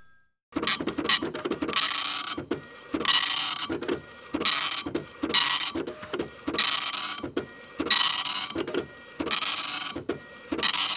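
A machine-like rhythm of hissing, rattling strokes, one about every second and a quarter, with quick clicking in between.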